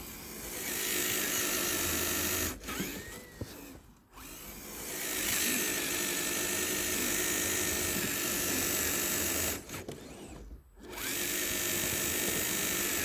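RC crawler's electric motor and geared drivetrain whining under throttle, in three runs of a few seconds each with short pauses between.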